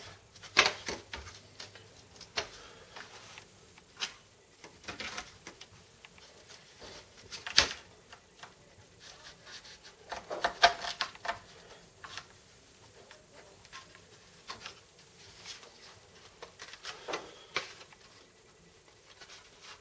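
Irregular light clicks and knocks of wooden tricopter airframe parts and bolts being handled and fitted together on a glass-topped workbench, with a sharper knock about seven and a half seconds in and a cluster of knocks around ten to eleven seconds.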